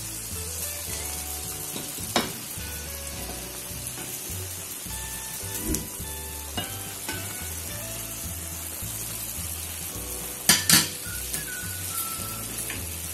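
Steady sizzle of dough balls deep-frying in hot oil and bubbling in a pan. A metal spoon clinks against the pan about two seconds in, and twice more in quick succession near the end, louder than the sizzle.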